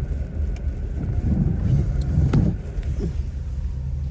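Car interior road noise while driving: a steady low rumble from the road and engine. It grows louder and rougher about a third of the way in, with a brief sharp click just past the middle.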